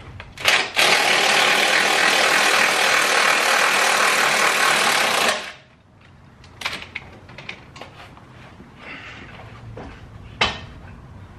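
Impact wrench running in one continuous burst of about four and a half seconds, hammering at a bolt holding the front crash bar, then cutting off sharply. A few light clicks follow, and a sharp metallic knock comes near the end.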